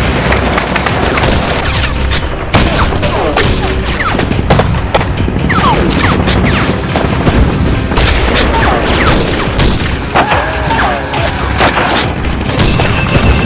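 Battle soundtrack of a war film: dense rifle and machine-gun fire with booming explosions, mixed with music, with short sliding whistles through it.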